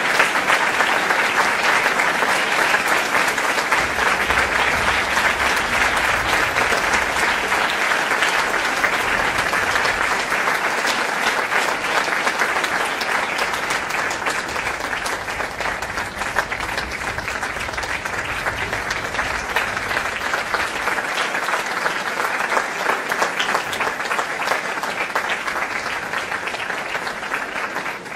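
Audience applauding: dense, steady clapping from many hands, easing a little over the second half.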